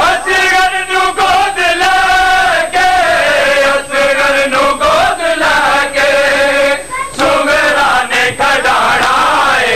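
A male reciter chanting a Punjabi noha, a Shia mourning lament, in long, wavering held notes, with repeated sharp slaps of matam chest-beating sounding through it.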